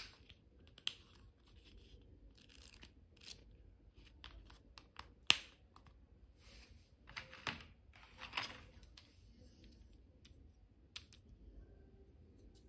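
Close handling of a small vinyl-covered notebook: sharp clicks of its press-stud strap snapping, the loudest at the start and about five seconds in, between short scratchy rustles of the plastic cover and packaging.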